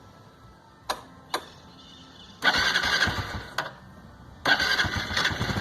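Cold start of a Honda Biz 110i's single-cylinder four-stroke engine. Two clicks, then a first start attempt about two and a half seconds in, where the engine fires for about a second and dies. A second attempt near the end catches and keeps running.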